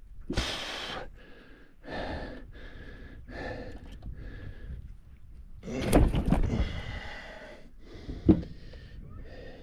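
A man breathing hard in short gasps while handling a freshly landed fish, with a loud clatter of handling on the boat deck about six seconds in and a sharp knock about two seconds later.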